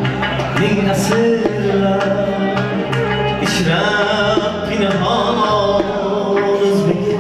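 Live Uzbek folk song: a man singing over a doira frame drum's sharp strokes and a plucked long-necked lute, with a bass line underneath.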